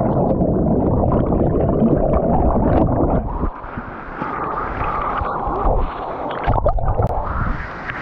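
Muffled, churning water and air bubbles heard with the microphone under the water's surface, the high end cut away. It surges and dips as the camera moves at the surface, with a sharp splash or knock about two-thirds through, and the sound opens up near the end as the camera comes out of the water.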